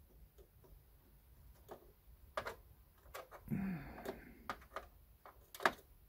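Scattered light clicks and taps of DDR4 server memory modules and their plastic DIMM slot latches being handled, about a second apart, the sharpest near the end.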